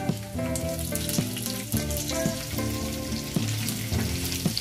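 Spices and green chillies sizzling in hot ghee and oil in a frying pan, stirred with a silicone spatula near the end. Background music with a melody of held notes plays over it.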